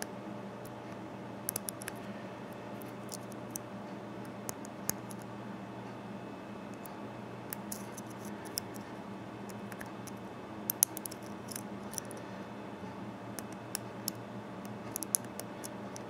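Faint, irregular metallic clicks and scratches from a steel pick hook lifting pins inside the 6-pin cylinder of an American Series 748 padlock, held under a tension wrench. The clicks come singly and in small clusters over a steady low hum, with the sharpest click a little before the eleven-second mark.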